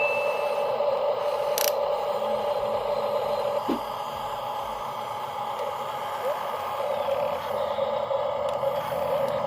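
Small electric motors and gearboxes of a radio-controlled toy construction machine whirring steadily as a continuous mechanical whine, with a short click about one and a half seconds in.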